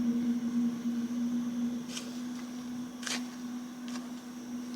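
A flying insect buzzing steadily, with a few soft clicks about two and three seconds in.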